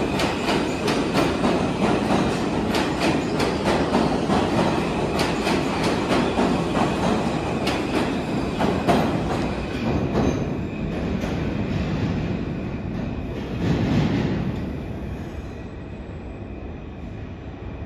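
R160 subway train running past along the platform, wheels clattering over the rail joints with a thin steady squeal. After the last car goes by, the sound fades as the train heads off into the tunnel.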